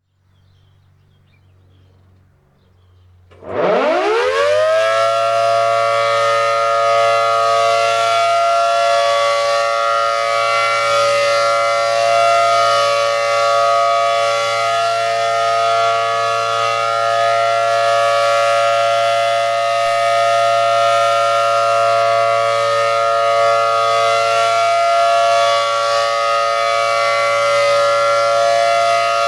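ACA Allertor 125 electromechanical rotating siren with a 10/12-port rotor sounding a Full Alert signal: it winds up quickly in a steep rising whine about three and a half seconds in, then holds a loud, steady dual-tone chord with slight swells as the horn rotates. The steady tone is the alert signal given during the monthly test.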